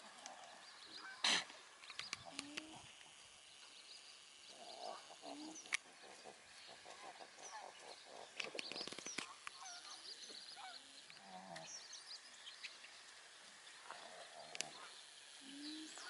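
A flock of small birds chirping and calling, with short low hums from alpacas now and then. A sharp knock about a second in is the loudest sound.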